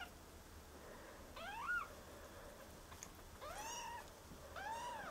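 Two-week-old kittens mewing: three short, thin, high calls, faint, the first rising in pitch and the later two arching up and down.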